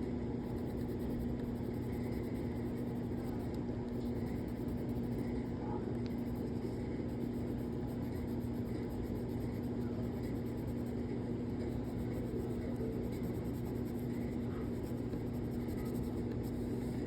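Crayon scratching on paper in quick, short, repeated strokes, laying down tiny overlapping diagonal lines of fur texture, over a steady low hum.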